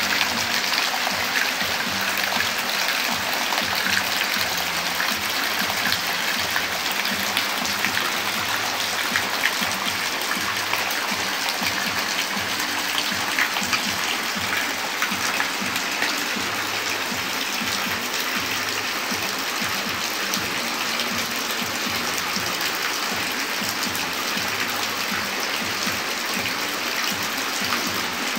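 Heavy rain falling steadily: a dense, even hiss full of small drop hits.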